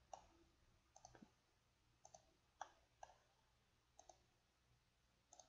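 Faint computer mouse clicks, singles and quick double clicks about once a second.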